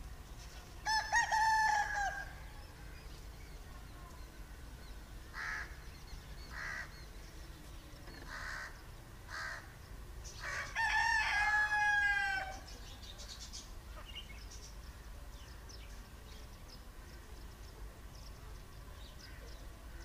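A bird calling: two long drawn-out calls that each fall away at the end, one about a second in and one about eleven seconds in, with a few short notes between them.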